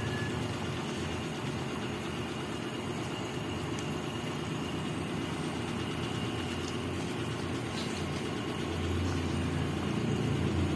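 Pan of pork and chicken adobo simmering in broth on the stove: a steady low rumble, a little louder near the end.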